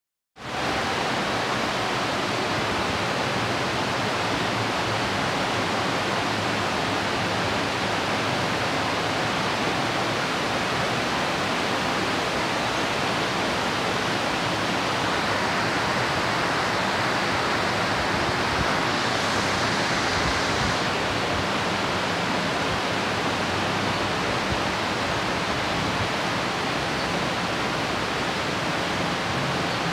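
Torrential tropical downpour: the dense, steady hiss of heavy rain, swelling a little for several seconds past the middle.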